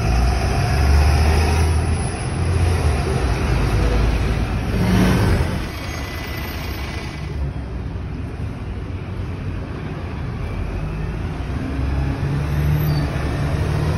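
Red double-decker city buses passing close and pulling away through a road junction, their engines rumbling with traffic noise. The loudest pass comes about five seconds in, then it drops quieter and builds again as another bus moves off near the end.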